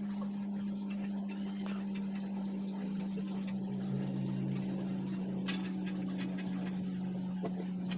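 A steady low hum at one pitch, with a few faint snips of small scissors cutting paper.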